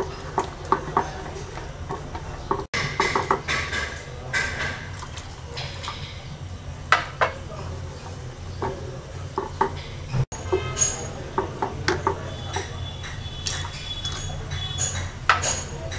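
Metal spoon clinking and knocking against a cooking pot at irregular moments while the dal is stirred, over a steady low hum.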